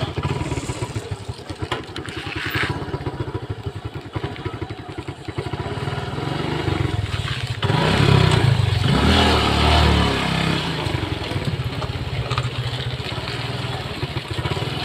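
Motorcycle engine running at low riding speed, with a fast, even exhaust beat. It gets louder for a couple of seconds about eight seconds in, as the bike picks up speed.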